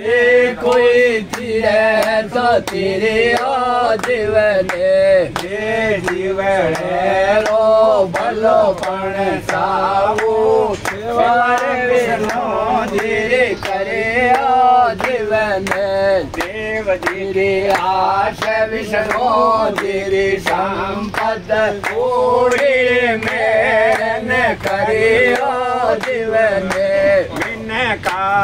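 A man singing a saakhi, a sung folk verse, in a wavering voice with long held notes, while hand claps keep time at about two a second.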